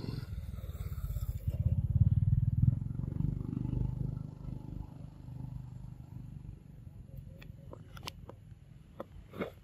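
A low, engine-like rumble swells to its loudest a couple of seconds in and fades away by about halfway. It is followed near the end by a few short, sharp crunching clicks.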